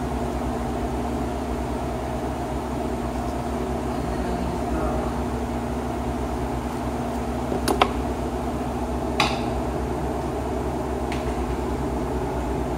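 Steady mechanical hum, with a couple of sharp clicks about a second and a half apart in the second half as small camera parts are handled.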